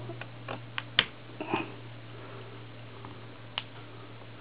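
A few sharp little clicks and light scraping of a small blade prying a rubber O-ring out of the groove on an oak dowel piston, over a steady low hum.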